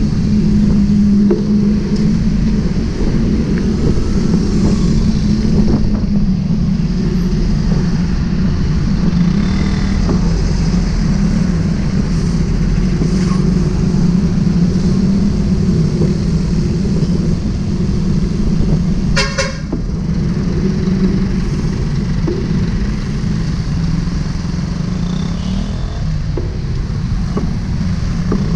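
Motorcycle engine running steadily at low speed, with road and traffic noise around it; a short vehicle horn toot sounds about two-thirds of the way through.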